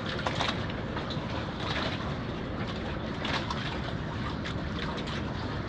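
Steady wind and river water lapping against a wooden platform, with small splashes scattered through it.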